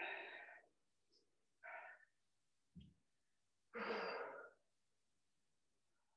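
A person breathing out hard three times, each heavy exhalation lasting under a second, with a brief low bump between the second and third.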